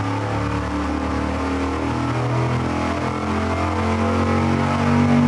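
Carbureted dyno engine running on methanol through a QFT methanol carburetor, pulled under full load on the engine dyno. Its note climbs steadily in pitch as revs rise from about 3,500 toward 5,200 rpm.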